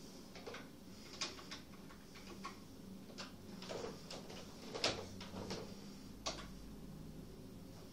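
Scattered clicks and taps of the buttons and controls on a Yamaha HS6 electronic organ being set, over a faint steady hum, with no music playing.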